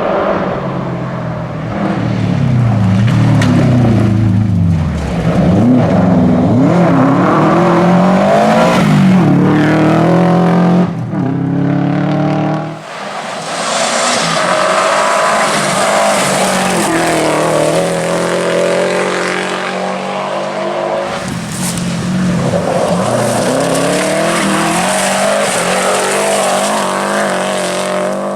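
Subaru WRX rally car's turbocharged flat-four engine revving hard at speed, its pitch climbing and dropping again and again with gear changes and lifts. About 13 s in the low engine note falls away briefly and a loud rushing hiss takes over for several seconds before the engine revs return.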